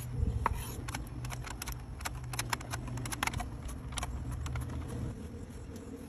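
Knife and slicer cutting through a pickle: a quick, irregular run of crisp cutting clicks over the first few seconds, with a low hum underneath.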